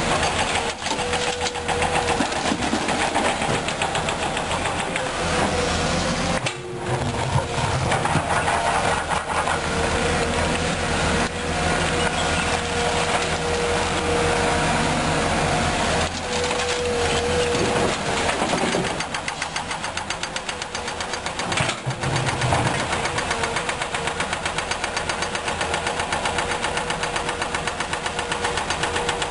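Komatsu PC200-8 Hybrid excavator's diesel engine running under working load while it digs and loads a dump truck, with a steady whine that comes and goes on top of the engine.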